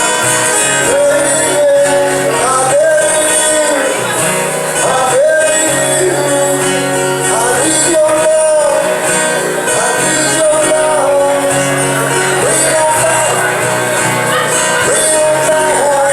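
Music playing: a song with a lead melody line that slides between held notes over steady bass and accompaniment, with a country feel.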